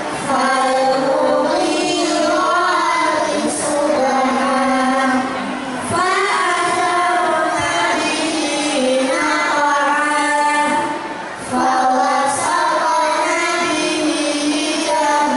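A small group of children singing together in unison through microphones, in long held phrases with short breaks between them.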